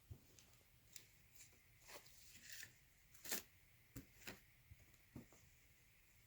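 Faint, scattered rustles and light ticks of yarn and its wrappings being handled and sorted, with one slightly louder rustle about three seconds in.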